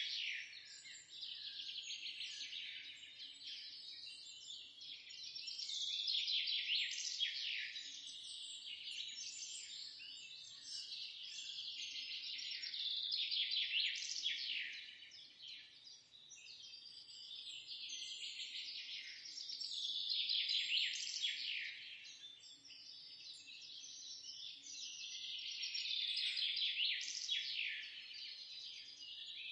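A dense chorus of small songbirds chirping and twittering, with many quick, high, downward-sweeping notes. The chorus swells and fades in waves about every six to seven seconds.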